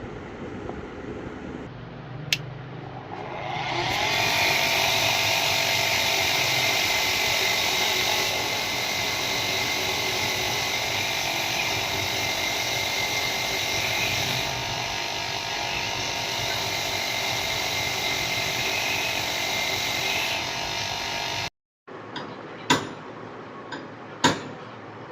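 Small electric power tool spinning up about three seconds in and running at a steady high-pitched whine for about eighteen seconds before cutting off abruptly, followed by two sharp clicks.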